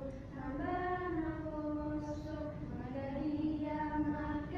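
A small group of young teenagers singing a melody together in unison, holding long notes that slide gently between pitches.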